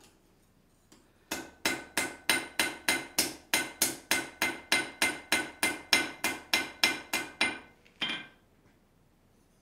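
A blacksmith's hammer striking a hot iron blade on the anvil in quick, even blows, about four a second for some six seconds, each blow ringing, then one last blow a little later. The blows are thinning the edge of a letter-opener blade forged from a horseshoe.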